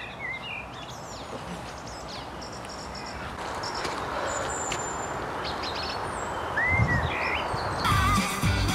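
Woodland ambience: scattered bird chirps and whistles over a steady background hiss that grows slowly louder. Music comes in near the end.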